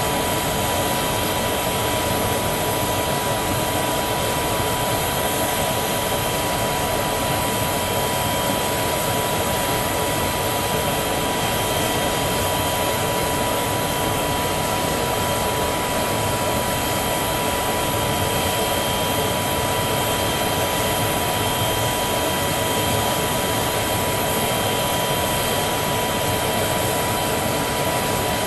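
Aircraft jet turbine running steadily: a constant rushing noise with a steady high whine that does not change in pitch or level.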